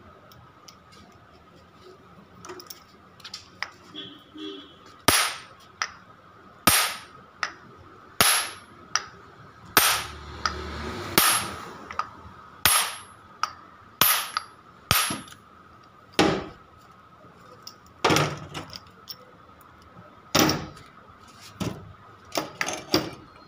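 Hammer blows on the metal parts of a dismantled Tata Ace starter motor: a run of some twenty sharp, ringing metallic strikes, roughly one a second, harder from about five seconds in.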